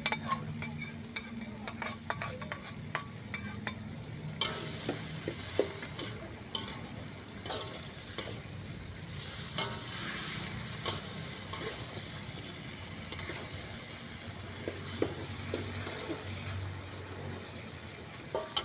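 Sweet-and-sour sauce and vegetables sizzling in a wok over a gas flame while a metal ladle stirs them, scraping and tapping against the pan. A quick run of clicks and taps fills the first few seconds.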